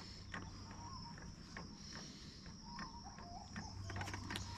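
Faint, steady high-pitched chorus of insects such as crickets, with light scattered clicks and a few short faint chirps.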